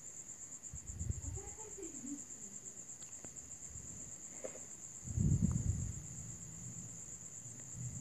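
A cricket trilling steadily in the background, a continuous high, finely pulsing note. A soft low thump about five seconds in is the loudest sound.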